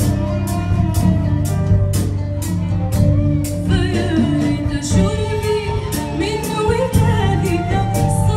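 Live band playing an Arabic song, with a steady beat of light percussion ticks about two and a half a second over a steady bass. A woman's singing voice comes in about halfway through, her long notes wavering in pitch.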